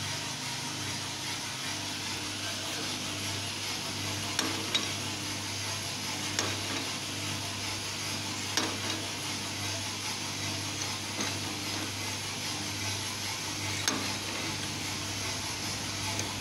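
Drum coffee roaster running: a steady hum of the machine with the hiss of beans tumbling in the drum. A handful of sharp clicks ring out at irregular moments.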